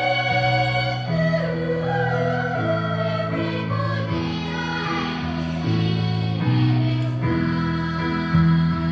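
Children's choir singing a melody over an instrumental accompaniment that holds low notes, changing every second or so.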